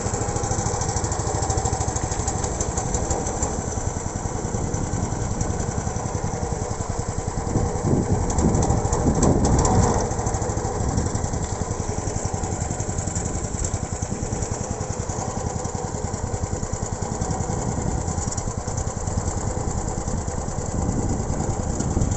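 Small boat engine running steadily at speed, louder for a couple of seconds about eight to ten seconds in.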